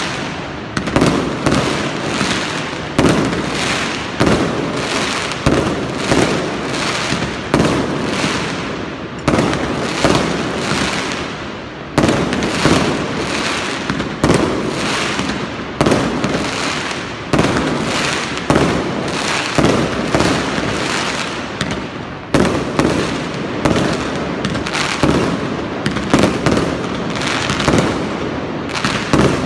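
Fireworks bursting without a break, a sharp bang every second or two, each trailing off in an echoing tail that runs into the next.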